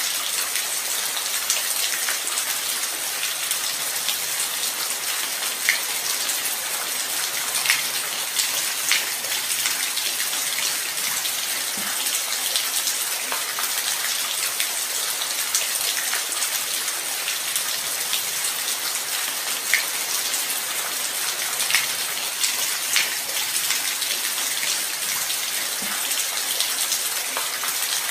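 Steady light rain: a dense, even hiss with individual drops ticking sharply every so often.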